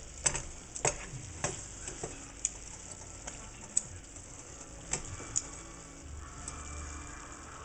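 A slotted spatula stirring and tapping against a pan of shrimp and snow peas in a coconut cream sauce that sizzles steadily as it reduces. A quick run of clicks from the spatula in the first couple of seconds, then only a few more taps.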